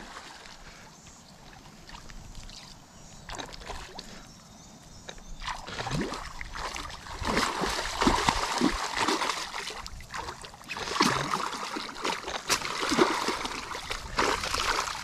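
A carp hit by a bowfishing arrow thrashing and splashing in shallow water as it is hauled in on the line. The splashing starts about five seconds in and comes in irregular surges.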